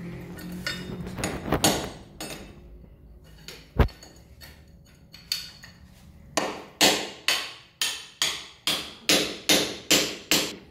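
Iron electric-fence bracket being tapped down into a hole drilled in the tiled top of a wall, with a few scattered knocks and one sharp knock, then a steady run of sharp metallic strikes, about two to three a second, each ringing briefly.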